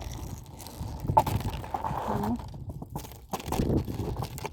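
Ice being worked loose by hand, with irregular crunching, cracking and sharp knocks as the frozen crust is broken and pried off.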